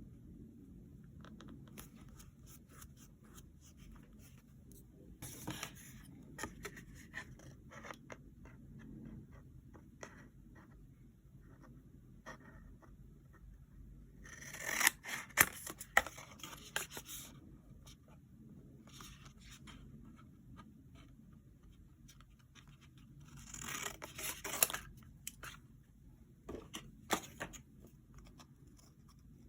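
Paper crafting at a desk: scissors snipping and paper being handled, with scattered small clicks and taps. Two louder spells of quick cutting and paper crackle come about halfway through and again near the end.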